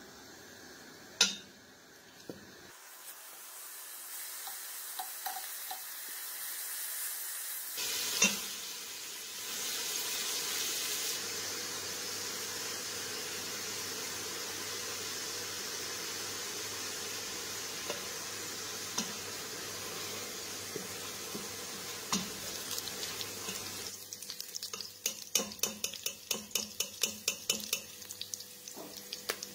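Minced meat sizzling as it fries in olive oil in a stainless steel pot, a steady hiss that grows louder after the first few seconds. Near the end a spatula scrapes and knocks against the pot several times a second as the meat is stirred and lifted out.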